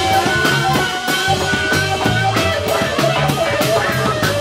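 Live band playing: drum kit keeping a steady beat under electric guitar, with sustained melodic lines from the trumpet and horns on top.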